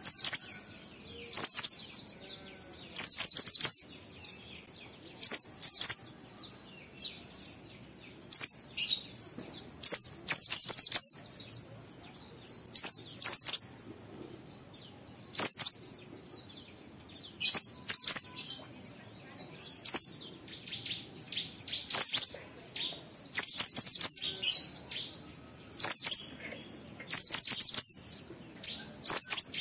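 White-eye (pleci) singing in the 'ngalas' style: short bursts of rapid, high-pitched twittering, repeated about every two seconds, with quieter twitters in between.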